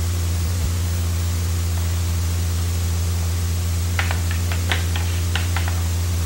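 Steady low electrical hum and hiss of an old home-video recording, with a quick run of light clicks and taps about four seconds in.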